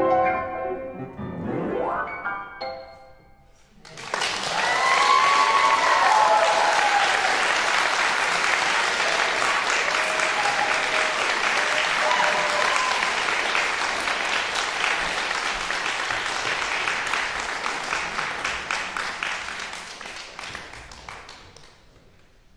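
Concert grand piano playing the last bars of a jazz-style piece: a fast upward run and a final chord that dies away. About four seconds in, an audience breaks into applause with a few cheers, which fades out near the end.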